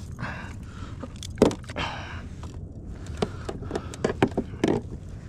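A few sharp knocks and scrapes of handling gear or fish on a kayak, over a low steady rumble.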